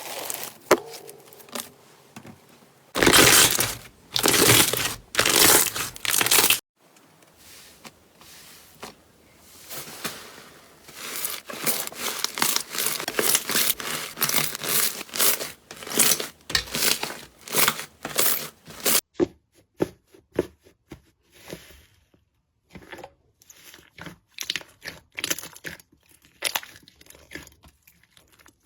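Slime being squeezed and worked by hand, giving loud crackling and crinkly popping. A few loud bursts come near the start, a long run of dense crackle follows, and the pops thin out to scattered single clicks in the last third.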